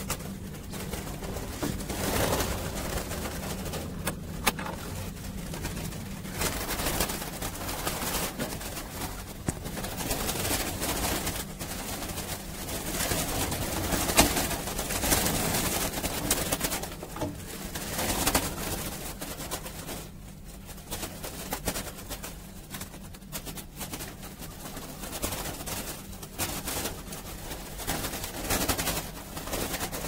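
Pigeons and doves cooing in a loft, over steady rustling and occasional knocks from handling.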